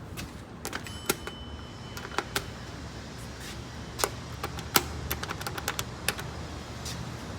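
Irregular light clicks and taps, a dense run of them about five to six seconds in, over a low steady hum.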